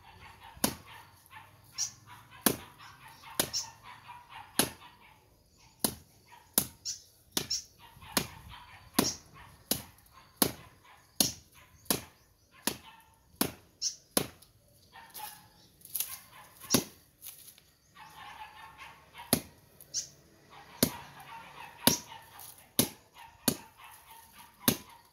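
Repeated machete strikes chopping weeds and brush, sharp cracks about one to two a second at an uneven pace, with rustling of leaves and stems between them.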